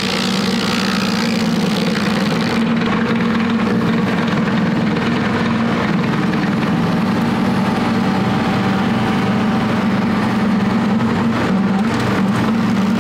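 A tractor-driven 3-point PTO stump grinder running steadily, its 24-inch carbide-toothed wheel grinding into a pine stump and throwing wood chips, with the 50-horsepower tractor's engine working under load.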